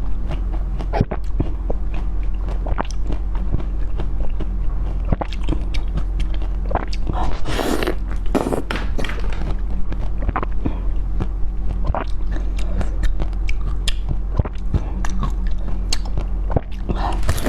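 Close-miked eating: a person biting and chewing, with a run of sharp wet clicks and smacks, over a steady low hum.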